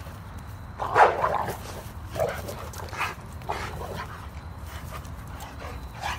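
Dogs barking during a rough dominance scuffle between a pit bull puppy and an adult Rottweiler: one loud bark about a second in, then about four shorter, softer barks.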